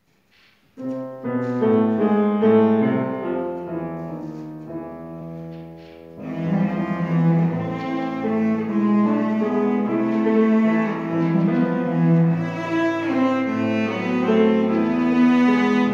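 Cello played with grand piano accompaniment. The music starts about a second in, eases off around four to six seconds, then grows fuller again.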